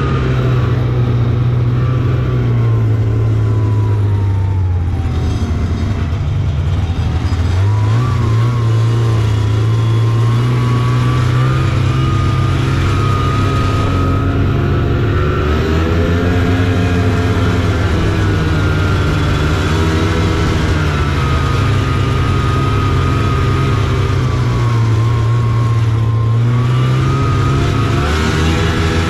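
Taiga Varyag 550 snowmobile's two-stroke engine running under way, its pitch rising and falling with the throttle. The note sinks a few seconds in, climbs again around eight seconds, holds fairly steady, then dips and picks up near the end.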